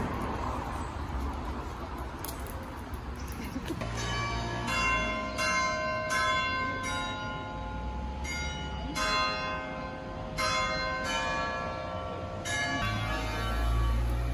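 Church bells ringing in a tower, struck one after another about once or twice a second, each strike leaving a long ringing tone. They start about four seconds in, over the low rumble of street traffic.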